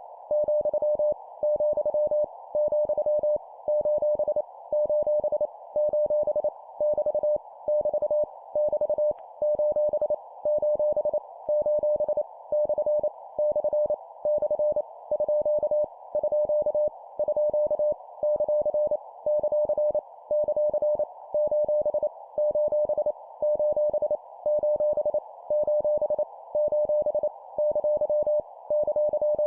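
Morse code (CW) practice tone of about 600 Hz keyed at 25 words per minute, sending random letters and punctuation in quick groups with short pauses between them, over a soft band of hiss.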